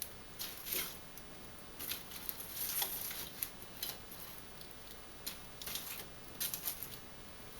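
Wood fire crackling in a fireplace: irregular sharp snaps and pops over a faint hiss.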